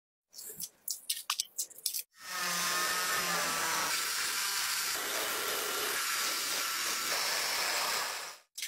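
A few short, sticky scraping strokes of a spatula spreading thick black filler putty. About two seconds in, a handheld rotary tool with a sanding drum starts grinding the model car's body, a steady high hiss with a faint whine, and cuts off shortly before the end.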